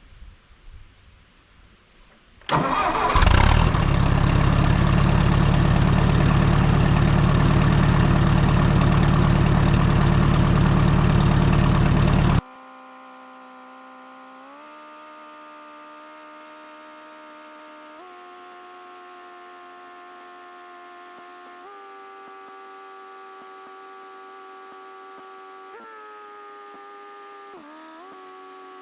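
1959 Ford 641 tractor engine started cold: it comes in loud about two and a half seconds in and runs steadily. Halfway through the sound drops abruptly to a quieter, steady engine note that steps up in pitch a few times, with a brief dip near the end.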